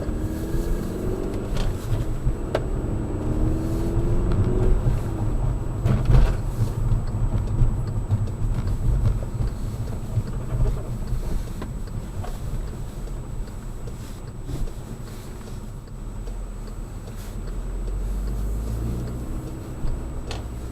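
Volkswagen GTI accelerating, its engine note rising over the first few seconds, then steady road rumble. A faint squeak comes with the acceleration in a right turn.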